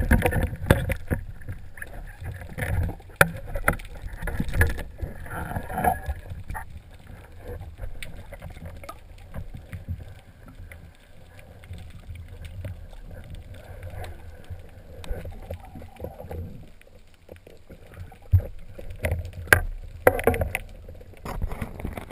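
Water movement heard from underwater: a muffled, uneven rushing and sloshing with many scattered knocks and clicks, louder at the start and in bursts a little before the end.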